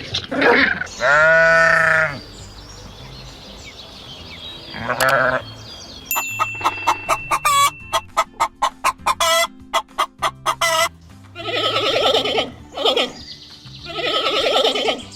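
Farm poultry calling: a long pitched call about a second in, then a fast run of short clucks, then harsher, broader calls near the end.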